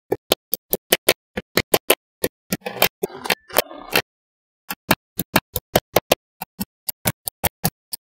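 Magnetic balls clicking as clusters of them are snapped onto a block: a rapid run of sharp clicks, about four or five a second, with a rattling scrape of balls in the middle and a brief pause just after it.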